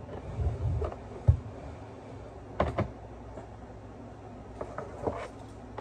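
Handling noises on a kitchen counter: a low rumble, then a sharp knock about a second in, followed by a pair of clicks and a few lighter taps near the end.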